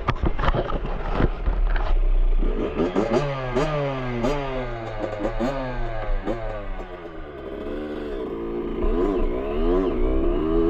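Yamaha YZ65's small two-stroke single-cylinder engine being revved up and down repeatedly, dropping back toward idle around seven seconds in and then revving again. Some knocking and rattling in the first two seconds.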